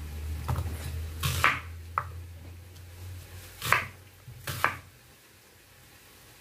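Kitchen knife chopping an onion on a wooden cutting board: a handful of irregular sharp knocks of the blade through the onion onto the board, stopping about five seconds in. A low hum runs underneath the chopping.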